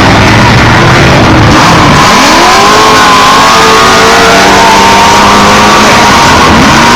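Off-road race vehicles' engines, loud, revving and accelerating away, typical of a race start. The pitch climbs about two seconds in and then holds high.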